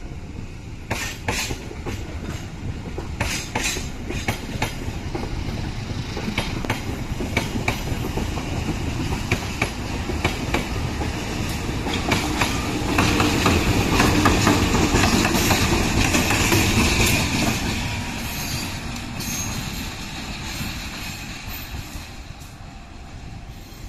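Train of passenger coaches rolling slowly past, wheels clicking over rail joints, then two KAI CC201 diesel-electric locomotives pushing at the rear pass close. Their engines make the rumble loudest about halfway through, and it fades as they move away.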